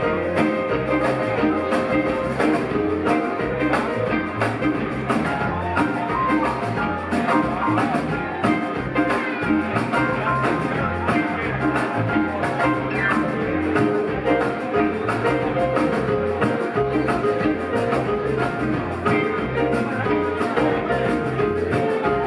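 Live rock band playing an instrumental passage: electric guitar, bass, keyboards and drums over a steady beat.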